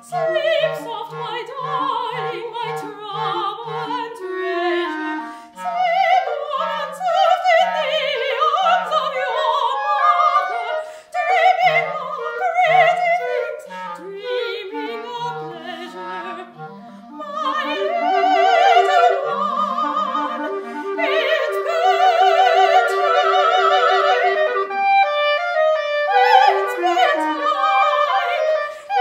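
Classical soprano and clarinet duet: the soprano sings held notes with operatic vibrato over a moving clarinet line, with short repeated low notes in the first few seconds.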